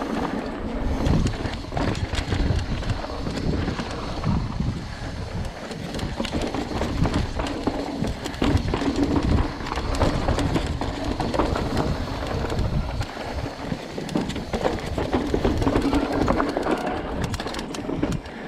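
Giant Reign SX 29 full-suspension mountain bike riding over a dirt and rock trail: tyres rolling and crunching on dirt and rock, frequent rattles and knocks from the bike over bumps, and wind buffeting the camera's microphone.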